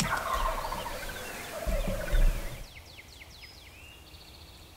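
Wild turkey gobbling: one loud, rapid rattling call that falls in pitch, with a couple of low bumps near its end. After it cuts off, faint high songbird chirps are heard.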